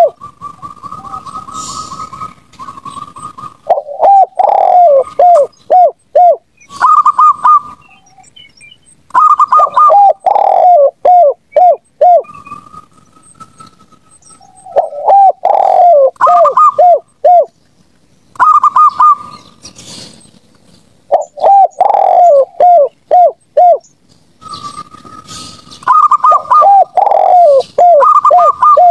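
Zebra doves and spotted doves cooing. Bursts of five or six quick, falling coo notes repeat every few seconds, with higher runs of rapid notes between them.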